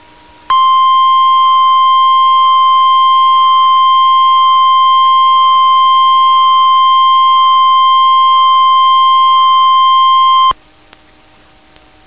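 NOAA Weather Radio 1050 Hz warning alarm tone: one loud, steady tone that starts about half a second in, holds for about ten seconds and cuts off sharply, with faint radio hiss before and after it. It signals that a warning message is about to be broadcast, here a severe thunderstorm warning.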